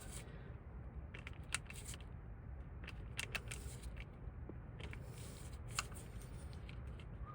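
Scattered small clicks and taps of metal parts being worked into a distributor by hand, with a brief scrape a few seconds in and two sharper clicks, one about a second and a half in and one near the end, over a steady low rumble.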